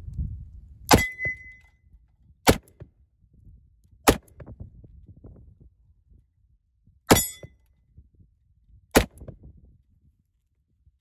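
Five .357 Magnum revolver shots from a 6-inch Smith & Wesson, one and a half to three seconds apart, each bullet striking a hanging steel plate target. The first and fourth hits leave a short high ring from the steel.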